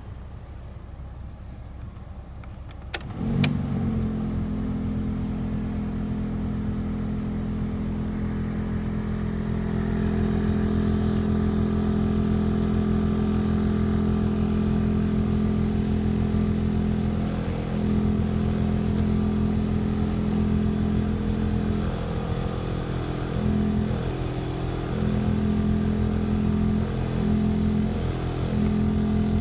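The VW Polo 9N's heater blower motor clicks on about three seconds in, then runs with a loud, steady hum. It gets louder about ten seconds in and wavers and dips several times in the later part. This is the noise of a blower motor that cleaning has not cured.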